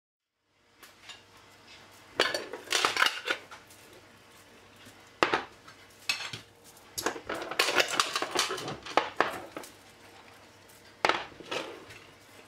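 Metal twist-off lids set on and screwed down onto filled glass jars, in several bursts of clinking and scraping.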